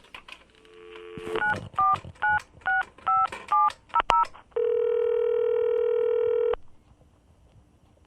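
Telephone call being placed: a brief dial tone, then a quick run of about eight touch-tone keypad beeps, then a single steady two-second ringback tone that cuts off.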